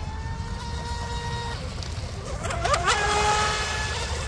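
Electric RC mono hull boat's motor whining as it runs at speed. About two and a half seconds in, the pitch dips and sweeps with throttle and steering changes, then it settles into a steady, louder whine as the boat planes past throwing spray.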